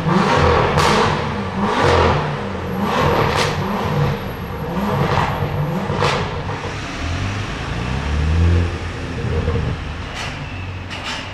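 Tuned BMW M2 F87's turbocharged straight-six with an aftermarket exhaust revving again and again, its pitch rising and falling several times, with a handful of sharp cracks from the exhaust between revs.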